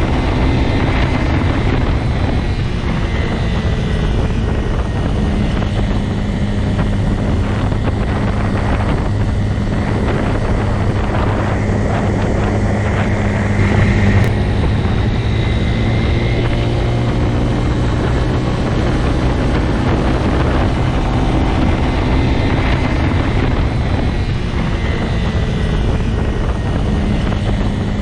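Motorcycle engine running steadily, its pitch holding nearly constant, with a brief small swell in level about halfway through.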